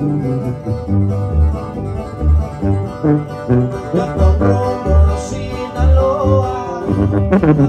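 A regional Mexican band playing live: plucked guitars over a steady, bouncing bass line, with a voice faintly at times.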